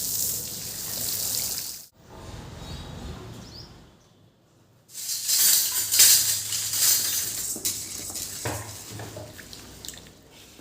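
Running water, as from a kitchen tap, in stretches: it cuts off sharply about two seconds in, goes nearly quiet around four seconds, starts again louder at about five seconds and then slowly fades.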